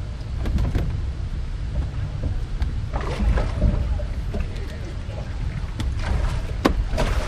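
Wind buffeting the microphone as a steady low rumble, with faint voices of people nearby about halfway through and near the end, and a few short knocks.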